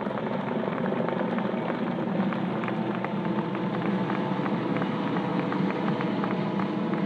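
AS-365 twin-engine helicopter's turbines and rotor running as a steady drone, with a faint regular beat of blade ticks.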